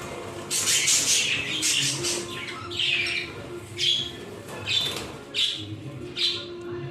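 Pet birds squawking: a series of short, harsh, high-pitched calls, about one a second, over background music.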